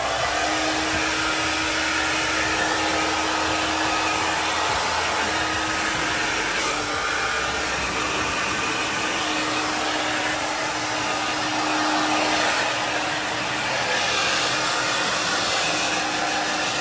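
A hand-held Hot Tools hair dryer running steadily, blowing on a wet French bulldog's coat to dry it after a bath: a continuous rush of air with a faint low hum.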